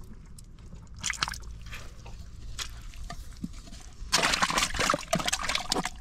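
A hand sloshing and squelching in a hole of thick muddy water, with scattered wet slaps. About four seconds in the splashing turns louder and busier.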